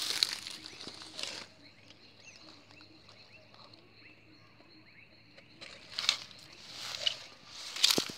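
Rustling and crunching of dry grass and weeds being pushed through on foot, in bursts over the first second or so and again from about six seconds in; in between it drops to a quiet stretch with faint high chirps.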